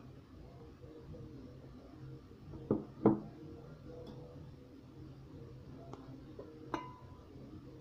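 Kitchen utensil knocking twice against a mixing bowl about three seconds in as mashed banana is added to the flour, then two lighter clinks of a whisk against the bowl near the end, the last one ringing briefly.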